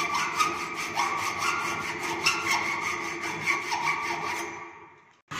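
Hand hacksaw cutting a mild steel flat clamped in a bench vice: a steady rasp of back-and-forth strokes with a ringing tone from the blade. The sawing fades away near the end.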